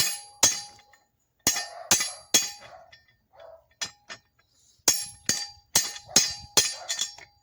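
Hammer blows on the top die of a blacksmith's C-frame guillotine tool, driving it down onto a hot railroad spike to taper it. There are about a dozen sharp, ringing strikes of steel on steel in quick runs of two to six, with short pauses between the runs.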